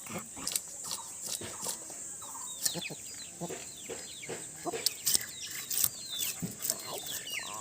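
Chickens clucking and chicks peeping in short falling chirps, over irregular scraping strokes as scales are scraped off a large catla fish.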